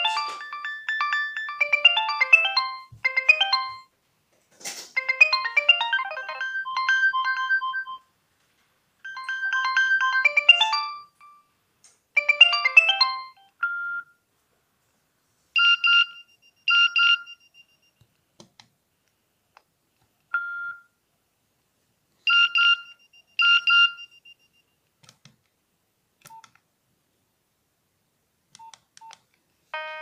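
A Nokia 2650 mobile phone's speaker playing its built-in ringtones. A quick melody of short synthesized notes runs in phrases for the first dozen seconds, then gives way to a sparser tone of short paired beeps with pauses between. A few faint clicks come near the end.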